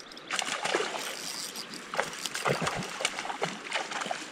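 A hooked fish thrashing and splashing at the water's surface as it is played in close to the bank, a run of irregular splashes that begins just after the start.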